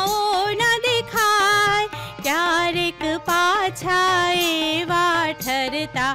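A woman singing a Gujarati children's song in long held notes, accompanied by tabla, harmonium and electronic keyboard, with the tabla keeping a steady beat.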